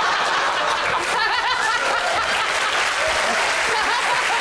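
Studio audience laughing and applauding, a steady wash of clapping with scattered laughing voices.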